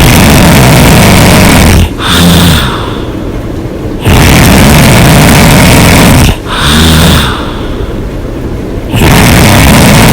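A woman snoring loudly with her mouth open. Long, loud breaths start about every four and a half seconds, each followed by a short buzzing snore and then a quieter breath.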